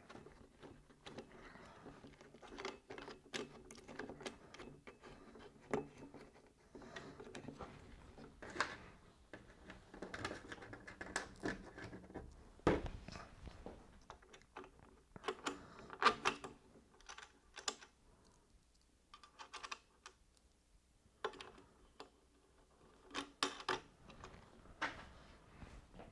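Faint, irregular clicks and taps of hand-fitting small hardware: flat washers and wing nuts going onto the tuner brackets, with the plastic tuner box being handled against the mast.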